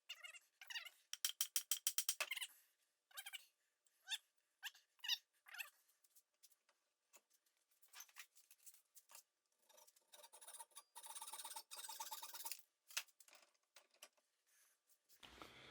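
Hand file scraping across a wooden maul handle, trimming it to fit the head: short strokes, some in quick runs of about five a second, and a longer scrape near the end.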